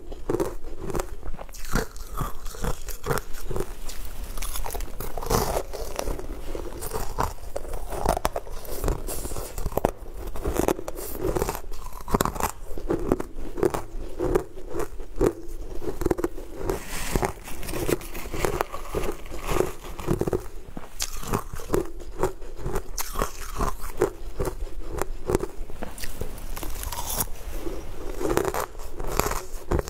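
Close-miked crunching and chewing of a mouthful of crunchy, grainy purple sweet food, with rapid, continuous crisp crunches.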